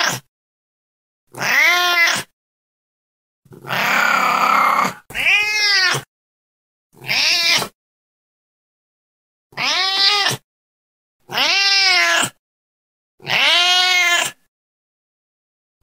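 A domestic cat meowing over and over: about seven separate meows, each rising then falling in pitch, with silence between them. The one about four seconds in is rougher and more breathy than the rest.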